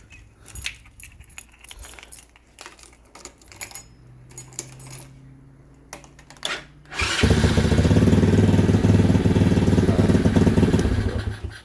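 A single-cylinder 125cc motorcycle engine, a CG125-type clone, cranking on its electric starter for about four seconds and then stopping abruptly, apparently without catching. The rider suspects the alarm's remote-start wiring is crossed or loose. Before that there are faint clicks and a low hum.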